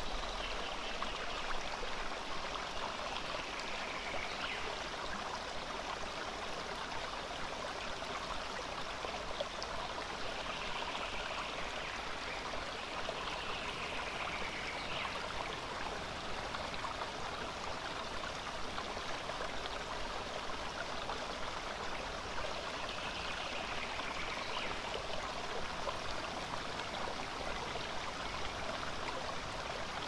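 Shallow stream flowing steadily over rocks and pebbles, with a few faint falling whistles on top.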